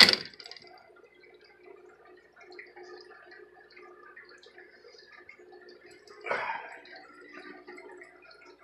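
Faint, steady bubbling and trickling of aquarium water, with one short louder scrape about six seconds in.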